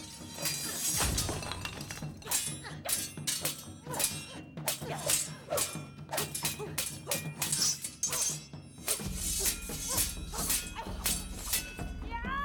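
Fight sound effects of a sword duel: a quick, irregular run of weapons striking and clashing, some hits cracking like breaking wood or metal, over a drum-led film score.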